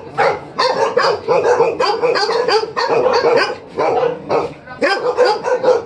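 Tibetan mastiffs barking in a kennel, a fast run of repeated barks about three a second.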